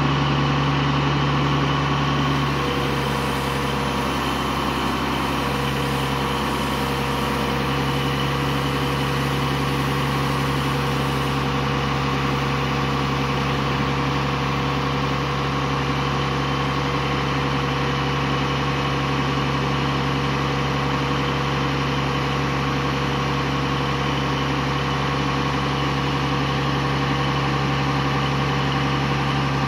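Truck engine running steadily at a constant speed, driving the hydraulics of a Sangdo SC716M truck-mounted crane while its boom is lowered.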